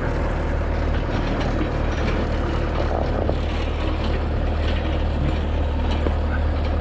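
Heavy diesel equipment engine running steadily, a constant low drone with no change in speed.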